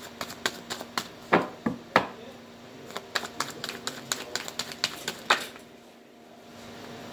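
A deck of oracle cards being shuffled by hand: quick, irregular clicks and flicks of the card edges, which stop about five and a half seconds in.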